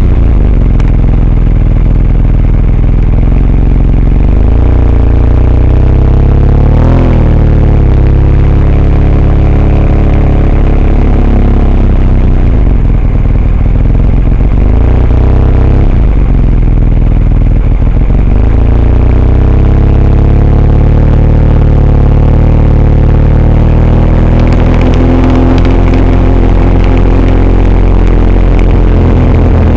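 Vehicle engine running loudly under way, its pitch rising and falling as it speeds up and slows down, with a steady low rumble of road noise.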